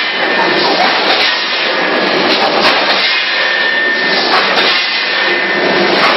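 Automatic rotary pouch bagging machine running, a steady loud mechanical noise.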